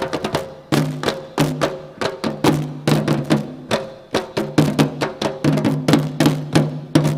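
Traditional South Sulawesi dance music: fast, busy drumming with sharp strokes over a steady low held tone.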